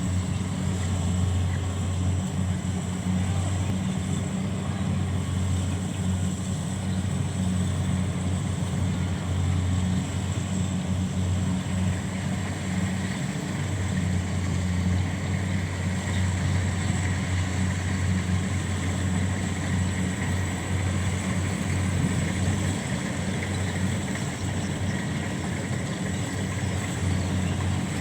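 Engine of a rice harvesting machine running steadily at work: a low, even drone with a faint high whine above it.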